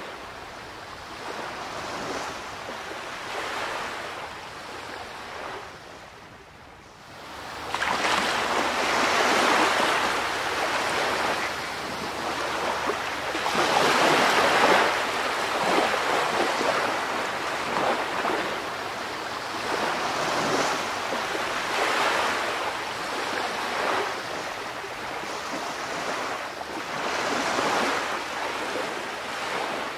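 Water washing and splashing with wind on the microphone, rising and falling in irregular surges. There is a brief lull about six seconds in, and it comes back louder about eight seconds in.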